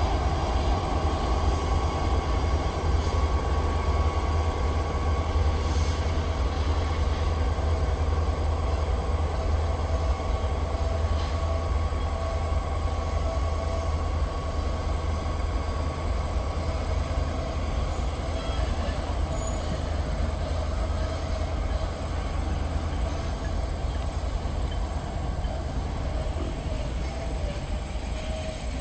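Freight train of tank cars rolling past: a steady low rumble of wheels on rail, with a faint thin squeal held at a steady pitch, easing slightly toward the end.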